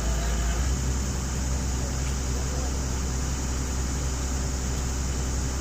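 Excavator's diesel engine running at a steady pitch, a continuous low drone with no revving.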